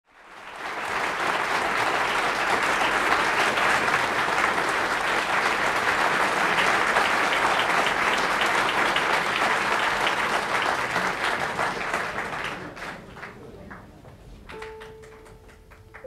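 Concert audience applauding: a dense, steady round of clapping that swells in within the first second, then thins to scattered individual claps after about 12 seconds. A single held note begins near the end as the music starts.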